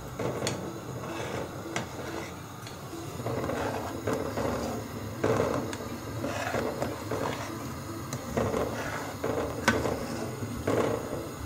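A long metal spoon stirring hot milk in a stainless steel pot: repeated swishes of liquid about once a second, with a few sharp clicks of the spoon against the pot. The milk has just had yoghurt added and is starting to curdle.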